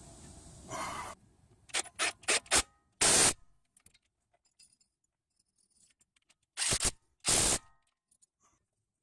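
A Milwaukee cordless power tool running in short bursts: a few quick clicks, then one brief run about three seconds in and two close together near the end.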